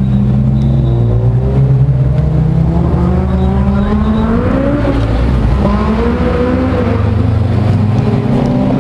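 Ferrari supercar engines (an F40 and an Enzo) running as the cars pass at low speed. Around the middle the engine pitch rises and falls several times.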